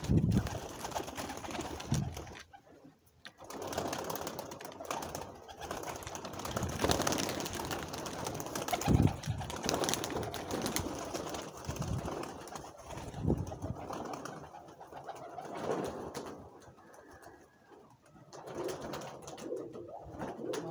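A flock of domestic fancy pigeons cooing on and off, with several dull low thumps among them.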